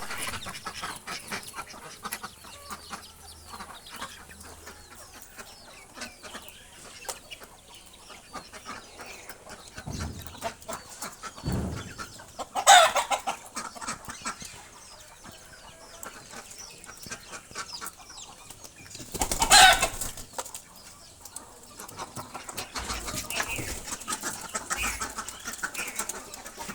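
Birds, with many small clicks and calls throughout and two loud, brief outbursts, one about halfway through and one about two-thirds of the way through.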